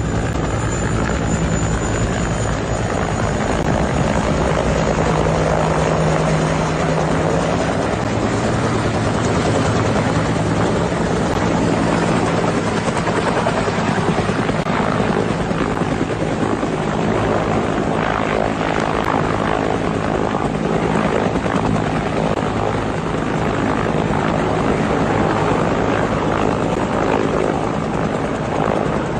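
Firefighting helicopter's rotor and engine running steadily and loudly, a continuous beating drone with a low hum underneath.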